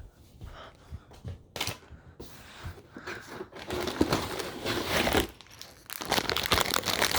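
Plastic bags of Lego pieces crinkling and rustling as they are handled, in irregular crackles that get busier and louder near the end.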